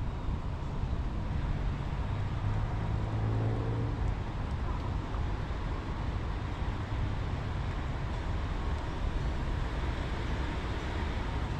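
Steady low outdoor rumble, with a brief low humming tone about three seconds in.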